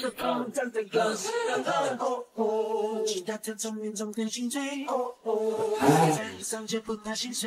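Background song with a man singing, the voice well to the fore over little accompaniment.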